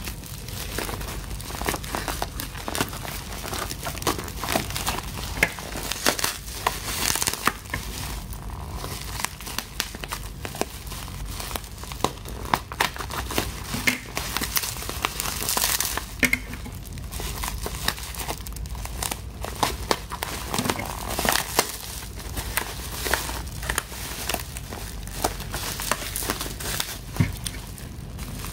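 Packaging of an online-ordered parcel being unwrapped by hand: irregular crinkling, rustling and tearing, with sharp crackles throughout.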